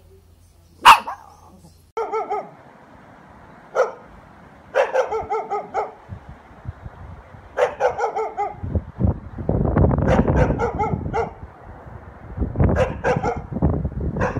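Dogs barking: one very loud, sharp bark about a second in, then short runs of quick barks, several in a row each time. From about the middle on, a low rumbling noise lies under the barks.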